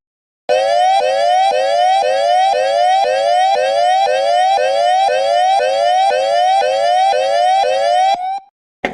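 Siren-like electronic whoop: a pitched tone rising in quick sweeps, about two a second, starting about half a second in and cutting off near the end.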